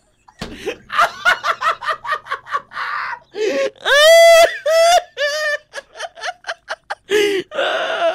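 A man laughing hard in rapid bursts, breaking into high-pitched, rising laughs about halfway through, with another burst of laughter near the end.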